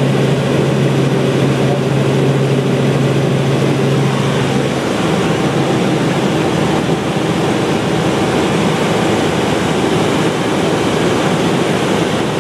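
Helicopter engine and rotor noise in flight, heard from inside the cabin: a loud, steady drone. A low hum within it drops away about five seconds in.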